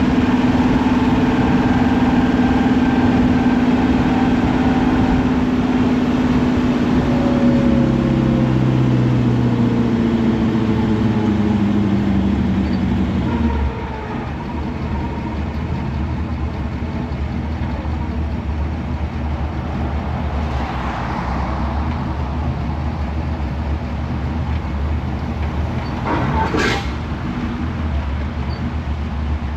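A car's big-block V8 running. Its pitch slowly falls and steps down over the first half. About halfway through the sound changes abruptly to a lower, steadier rumble, and a single sharp click comes near the end.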